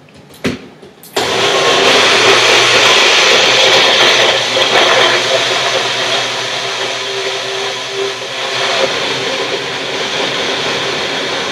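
Magic Bullet blender: a click, then the motor starts suddenly about a second in and runs steadily, blending a thick mix of banana, avocado and coconut oil.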